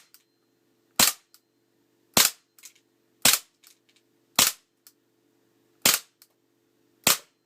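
Tokyo Marui Desert Eagle .50AE gas-blowback airsoft pistol fired six times at about one shot a second. Each sharp crack is followed by one or two faint clicks.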